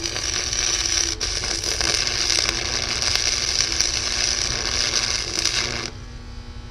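Electric arc welder laying a bead: a steady, dense crackle and sizzle of the arc for about six seconds, cutting off suddenly, after which a low electrical hum remains.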